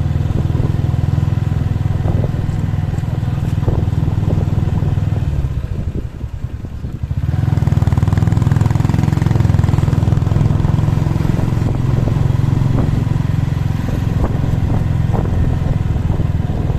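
Motorcycle engine running steadily as the bike rides along a street. It eases off briefly about six seconds in, then pulls again.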